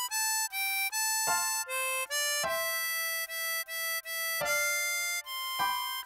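A ten-hole diatonic harmonica plays a slow single-note melody in its middle-upper range, moving between blow and draw notes on holes 5 to 7. The notes run around A5, B5, C6 and G5, each held from about a third of a second to over a second.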